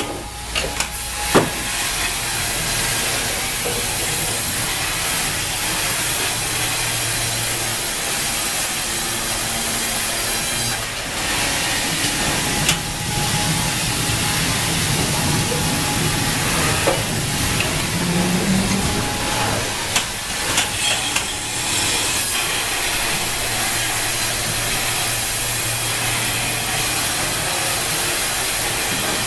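Wravor band sawmill running and cutting a log as the operator's saw head travels along it: a steady, loud hiss of sawing over a low machine hum, with a few sharp knocks.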